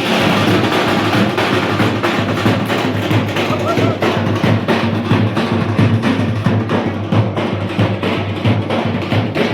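Loud music driven by drums and percussion, with a dense, steady beat.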